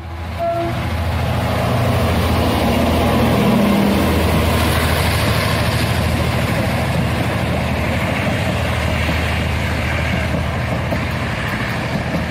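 Diesel locomotive engine running, a steady low rumble that builds over the first second or two and then holds.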